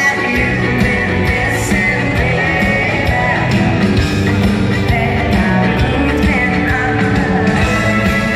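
Live band playing a country-pop song in an arena, with a woman singing lead and a steady drum beat, heard from among the audience.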